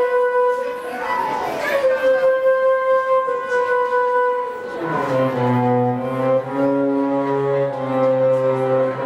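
Theremin bollard's electronic tones, changing as a player moves her hands around it: a held note with a swooping fall in pitch about one and a half seconds in, then a second, lower note joining about five seconds in.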